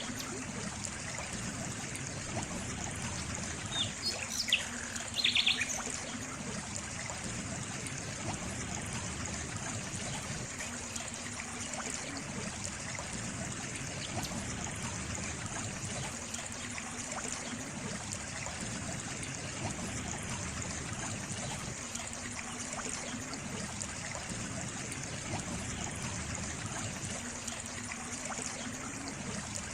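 Water trickling and running steadily, as from a small stream, with a short burst of bird chirps about four to five seconds in.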